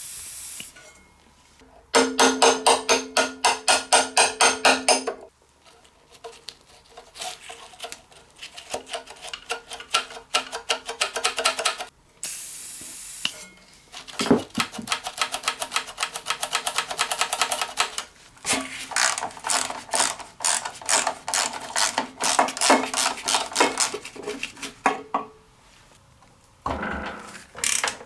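Several long runs of rapid metallic clicking and rattling from hand work on a rusty mower engine's seized throttle linkage. A short hiss of aerosol penetrating spray comes about twelve seconds in.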